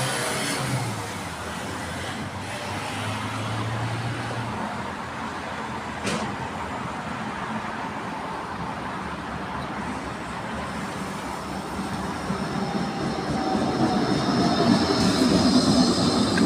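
Road traffic running alongside the tramway, then a Bombardier Flexity 2 tram drawing into the stop, its rolling noise growing louder over the last few seconds as it slows and passes close by, with a whine falling in pitch.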